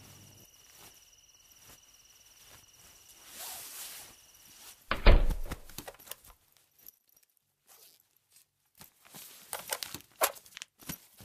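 Crickets chirping steadily until about halfway through, then a single heavy low thump. Near the end there is a run of light knocks and clicks.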